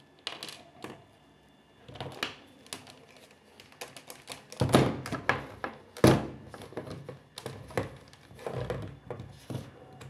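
Clicks, taps and thuds of a multimeter, its test probes and a screwdriver being handled and set down on top of a washing machine, with two heavier knocks about halfway through.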